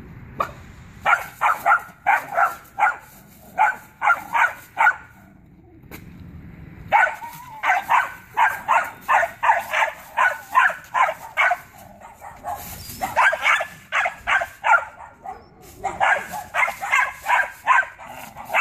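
An 11-week-old Belgian Malinois puppy barking rapidly in high-pitched volleys, about two to three barks a second, with a short lull about five seconds in: defensive barking at an approaching stranger.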